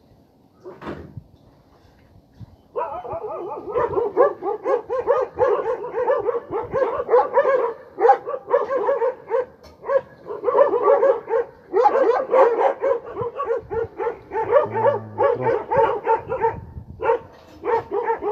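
Stray dogs barking: a few brief sounds at first, then from about three seconds in a steady run of barks, several a second, that keeps on to the end.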